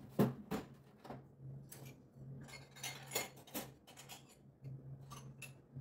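Light clinks and knocks of a spoon and small dishes being handled as food is scooped into a small dish, irregular and a few a second, over a faint low steady hum.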